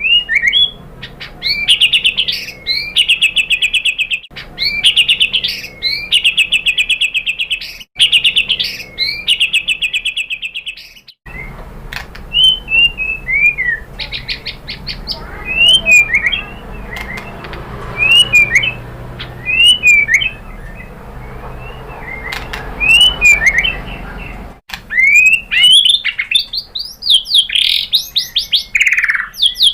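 White-rumped shama singing. It opens with three bursts of a fast, rattling trill, each about three seconds long and separated by short breaks. After that come separate short whistled slurs over a faint hiss, and near the end a denser run of song.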